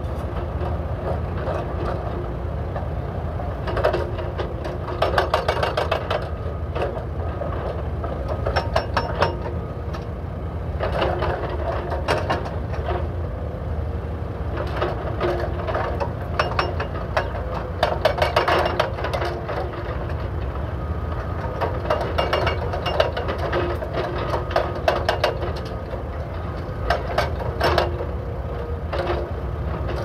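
Hydraulic breakers on SANY SY335C excavators hammering asphalt blocks in repeated bursts of rapid blows, a second or more each, over the steady low drone of the excavators' diesel engines.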